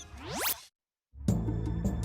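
Cartoon sound effect: a quick rising whoosh lasting about half a second, cut off into a brief moment of total silence. Background music with low sustained notes starts about a second in.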